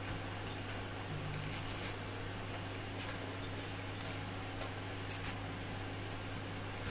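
Handling noise of electrical cables being routed by hand through a 3D-printed plastic unit: a short crackling rustle about a second and a half in and a smaller one about five seconds in, with light clicks, over a steady low hum.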